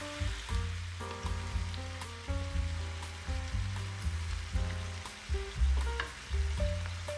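Chicken and broccoli sizzling in a frying pan, stirred with a wooden spatula that clicks and scrapes against the pan now and then, under background music with a melody and a strong bass line.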